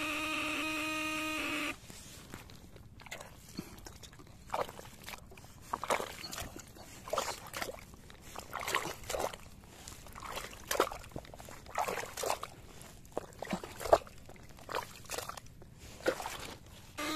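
A homemade eel electroshocker buzzing steadily for the first second and a half, then cutting off. After that, irregular wet squelches and sloshes of mud and water, one much louder late on.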